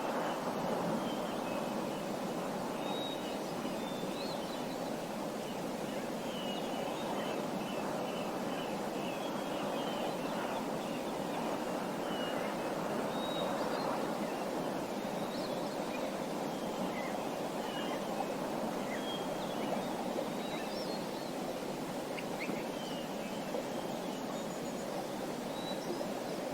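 Small birds chirping in short, scattered calls over a steady rushing background noise.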